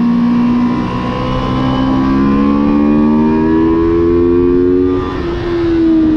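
Motorcycle engine heard from onboard, accelerating with its pitch climbing smoothly for about four seconds, then dropping at a gear change about five seconds in and easing down slowly afterward.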